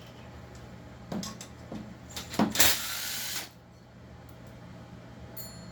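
Workbench handling noise as a chainsaw is taken apart: a few sharp clicks and knocks of metal parts and tools, then a short rushing hiss lasting under a second about halfway through.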